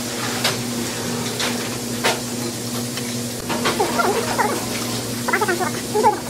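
Eating sounds: chewing, with a few sharp clicks of metal chopsticks against dishes in the first couple of seconds. Under them runs a steady low hum.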